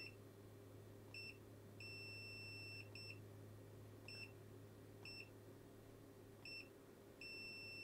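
Faint key-press beeps from an ET828 handheld graphical multimeter as its oscilloscope display settings are stepped through: short single-pitch beeps about once a second, with two longer beeps of about a second each, one early and one near the end.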